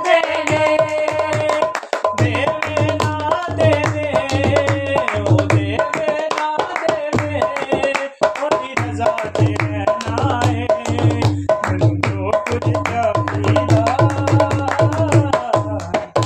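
Male voices singing a Christian devotional song to a dholak, a two-headed barrel hand drum, played in a steady rhythm of deep bass strokes and sharp slaps, with hand claps.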